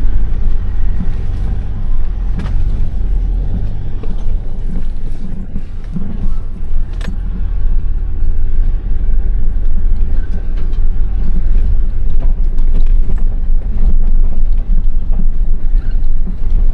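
Vehicle driving slowly over a rough gravel driveway, heard from inside the cab: a loud, steady low rumble with a few sharp knocks and rattles as it bumps along.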